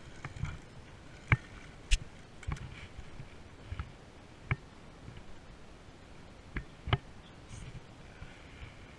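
Handling noise from a spinning rod and reel while a fish is reeled in and landed: about six sharp clicks and knocks spread through, the loudest a little over a second in, about two seconds in and near seven seconds, over a low rustle.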